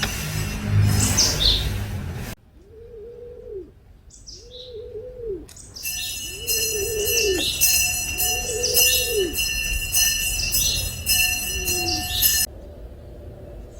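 Doves cooing, a low arched note repeated about once a second, with short high chirps from small birds. A steady humming drone of several pitches joins midway and stops shortly before the end.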